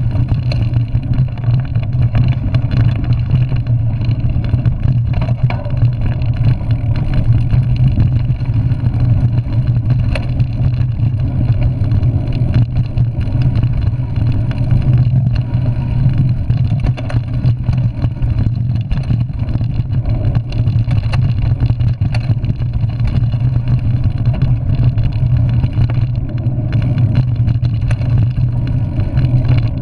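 Mountain bike riding fast down a dirt singletrack trail, heard from a handlebar-mounted camera: a loud, steady low rumble of tyres and trail vibration, with frequent small knocks and rattles from the bike over roots and bumps.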